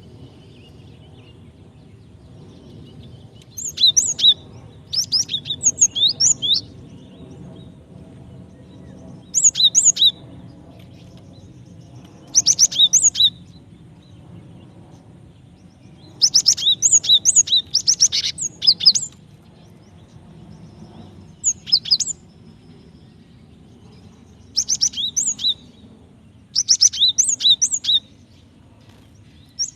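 Female cinereous tit calling to a male in short bursts of sharp, rapidly repeated chirps. There are about nine bouts with pauses of one to three seconds between them, over a low steady background hum.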